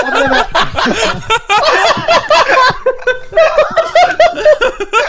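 Several men laughing hard together, overlapping bursts of laughter.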